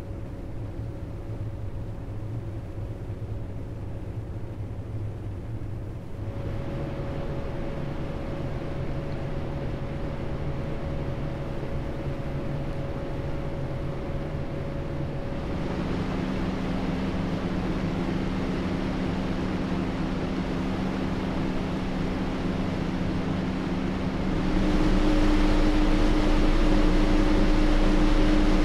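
CPU cooler fan running with a steady whoosh and hum, stepping up in speed three times: about six seconds in, about halfway, and near the end. Each step makes the hiss louder and raises the pitch of the hum.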